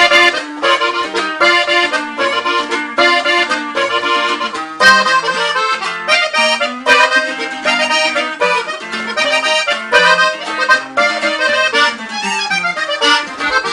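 Instrumental break of a Mexican corrido: accordion playing a quick melodic run over a bass line, with no singing.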